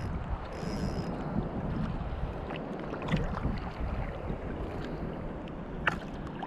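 Wind buffeting the microphone over shallow sea water, with a short whir of a small spinning reel being wound about half a second in and a few sharp clicks, the sharpest near the end.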